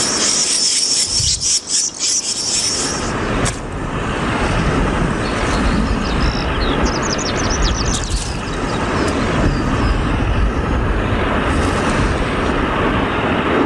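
Desert warbler nestlings begging with rapid, shrill high chirps for the first three seconds. After that a steady low rumbling noise carries on, with a few short, quick high chirps from a bird about seven seconds in.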